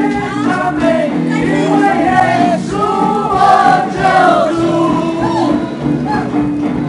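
A man and a woman singing a pop duet into microphones over backing music, amplified through a PA.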